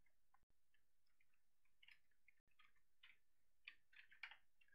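Faint typing on a computer keyboard: a run of irregular, short key clicks, coming more often in the second half.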